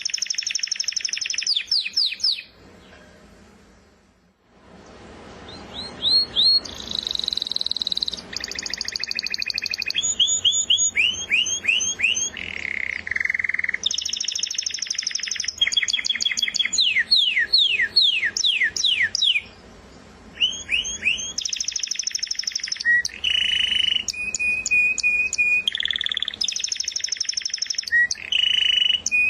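Domestic canary singing: runs of rapidly repeated notes, trills and falling whistled sweeps that switch to a new pitch every second or two. There is a short pause a few seconds in and another about two-thirds through.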